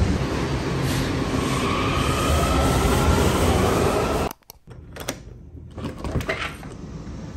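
Washington Metro station noise: a train's electric motor whine rising steadily in pitch over a loud rumble. After about four seconds the sound cuts off abruptly and gives way to a few quiet clicks and knocks of a door latch as a doorknob is turned.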